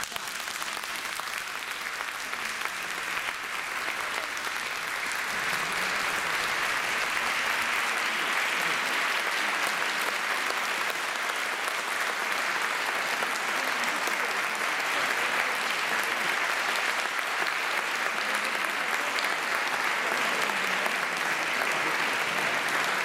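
Concert audience applauding steadily at the end of an orchestral piece, the clapping swelling over the first few seconds.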